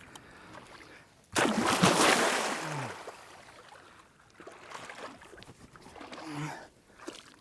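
Shallow, muddy water splashing loudly about a second in, fading over a couple of seconds into quieter sloshing and trickling, as a large alligator gar is landed at the bank.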